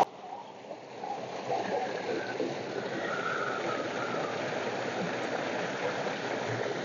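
Water gushing steadily from a large outlet pipe and splashing into a concrete tank, with a hand rinsing a bunch of fresh mint in the stream. The rush comes up within the first second and then holds steady.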